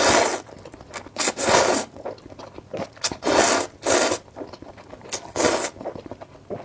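Close-miked slurping of spicy instant noodles: a series of about six short, noisy slurps with gaps between them.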